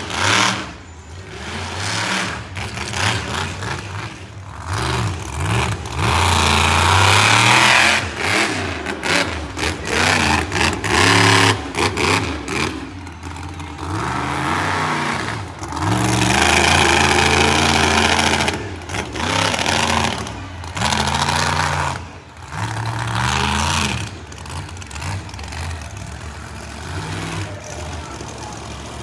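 Monster truck engine revving hard and easing off again and again, its pitch rising and falling, then running lower near the end.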